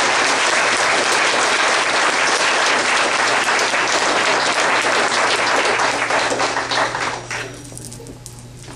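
Audience applauding steadily, dying away about seven seconds in.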